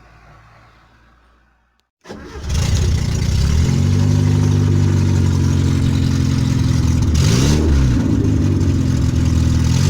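Fiat Uno engine running loud through a broken exhaust, the pipe separated at the Y-joint, coming in suddenly about two seconds in after a faint hum. Blipped once about halfway through, the pitch rising and falling, with another rev starting near the end.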